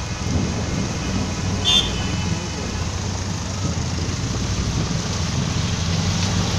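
A vehicle engine running steadily from inside the moving vehicle, with the hiss of rain and traffic on a wet road. A short, high horn toot sounds once, just under two seconds in.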